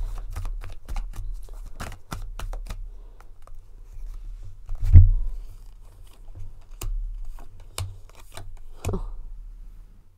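Tarot cards being shuffled and handled on a table: a quick run of light clicks and scrapes, with one heavier thump about five seconds in and a few softer knocks after it. A faint steady low electrical hum runs underneath.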